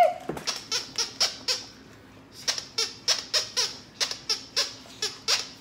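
Squeaker in a blue plush dog toy squeezed over and over, quick sharp squeaks at about four or five a second in three runs with short breaks between.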